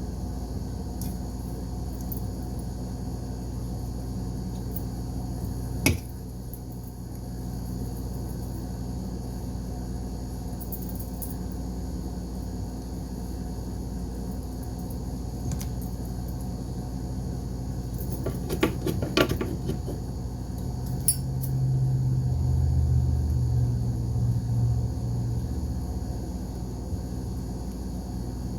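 Steady low hum with occasional sharp clicks and light clinks of small hard objects being handled, a small cluster of them after about eighteen seconds. A louder low drone swells for a few seconds near the end.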